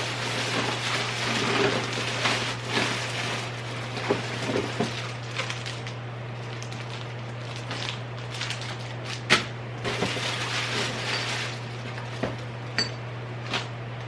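Household items being handled and set down: rustling and small knocks, one sharp knock about nine seconds in, and a few light clinks near the end, one briefly ringing. A steady low hum runs underneath.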